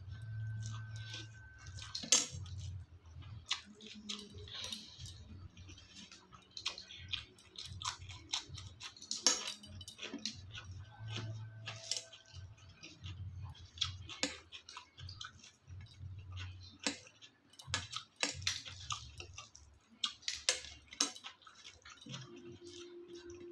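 A person eating a meal: irregular sharp clicks and light clinks of a utensil against a plate, with softer eating sounds between them.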